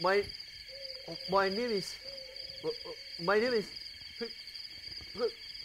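A steady chorus of chirping crickets as night-forest ambience, under a man's slow, drawn-out words spaced a second or two apart.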